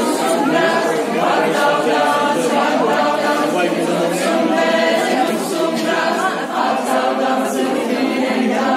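A group of voices singing an unaccompanied Occitan dance song for the dancers.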